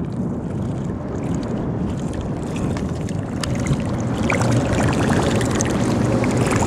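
Lakeshore Lure Co. Buzz-N-Betty topwater muskie buzzbait being retrieved: its single buzz blade churns the surface with a splashy gurgle that grows louder over the second half as the lure nears. Underneath is a steady low rumble of choppy water against the boat.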